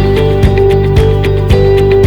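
Background music with a steady beat, about two beats a second, over sustained melodic notes.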